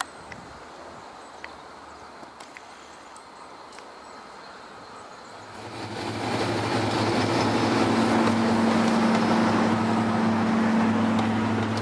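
Faint outdoor background with a few light ticks, then about halfway in a Class 55 Deltic diesel locomotive comes up loud, its twin two-stroke Napier Deltic engines running with a steady low drone as it hauls a train past.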